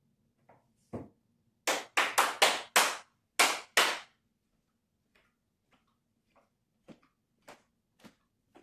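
A quick, uneven run of about seven sharp, loud smacks over two seconds, after a single one about a second in, followed by fainter scattered taps roughly every half second.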